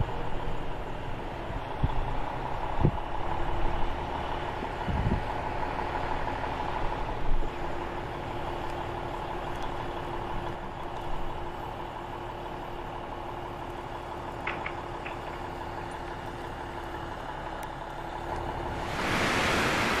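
Steady drone of a truck-mounted crane's engine running, with a few low thumps of wind on the microphone in the first seconds. About a second before the end it gives way to a loud rush of wind.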